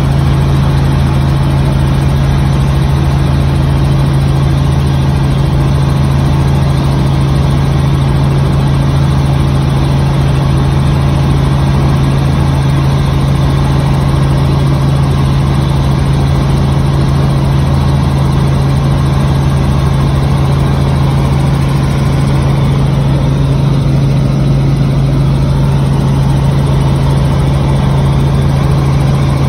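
Robinson R44 Raven II helicopter in cruise, heard from inside the cabin. Its six-cylinder Lycoming piston engine and rotors make a loud, unbroken drone with a strong steady low hum.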